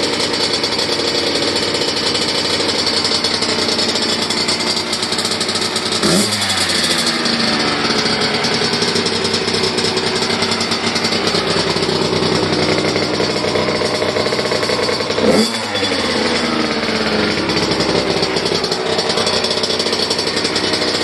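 2015 Kawasaki KX85's single-cylinder two-stroke engine running after its top-end rebuild, held at a steady fast idle and blipped on the throttle twice, about six and fifteen seconds in, each rev rising sharply and dropping back.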